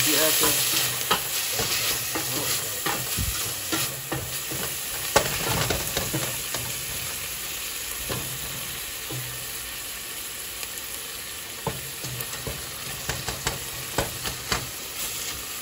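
Ground beef sizzling as it browns in a stainless steel pot, with a wooden spoon scraping and clacking against the pot as it is stirred. The sizzle is loudest at the start and eases off a little, and one sharper knock of the spoon comes about five seconds in.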